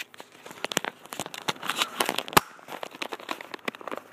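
Handling noise on a phone's microphone: irregular rustling, scraping and clicking as the phone rubs and knocks against clothing, with one sharp knock a little past the middle.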